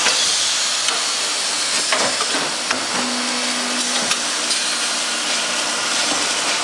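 Pneumatic steel tube cutting machine running: a steady hiss with several sharp clicks and knocks as it works. A short steady hum sounds for about a second, about three seconds in.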